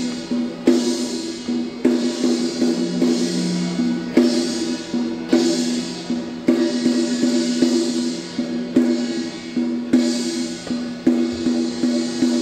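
Chinese temple percussion, drums and cymbals, beating a steady rhythm with a loud cymbal crash about once a second and lighter strokes in between, over a sustained ringing tone.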